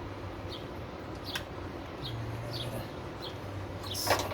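A bird chirping over and over in short, high, falling chirps about every half second. Two sharp metallic clicks from hand work on the part come through, the louder one near the end.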